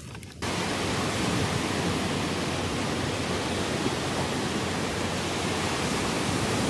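Surf of the Baltic Sea breaking on a sandy beach: a steady rushing noise that starts abruptly about half a second in.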